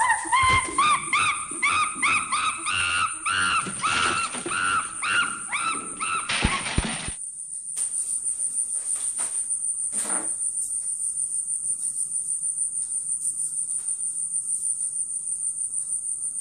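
A pet monkey calls in a rapid run of short, high, rising-and-falling cries, a few a second, for about seven seconds, then stops abruptly. Crickets chirp high and steady throughout, with one knock about ten seconds in.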